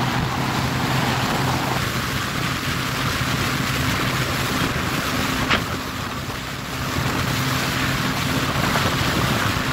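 Sea-Doo Speedster jet boat running steadily across choppy water: a steady low engine hum under wind noise on the microphone and the rush of water. A brief click about five and a half seconds in.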